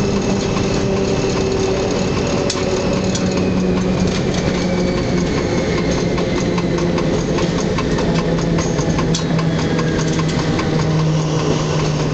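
Diesel engine of a BB 67400-class diesel-electric locomotive heard from inside the cab, running steadily with its pitch stepping down as the train slows into the station. A faint whine falls slowly underneath, with scattered light clicks of wheels over rail joints and points.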